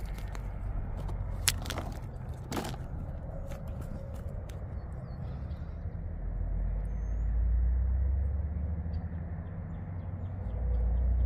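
Wind rumbling on the microphone, swelling twice, with two sharp clicks a second and a half and two and a half seconds in and one short bird chirp about seven seconds in.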